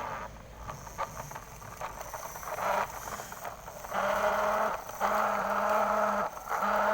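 Battery-powered toy truck buzzing steadily, a small electric motor or sound unit running, after a few light plastic clicks from handling. The buzz cuts out briefly twice.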